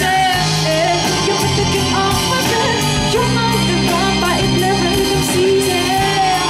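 Live band playing a pop song, with electric bass and guitar under a gliding melody line.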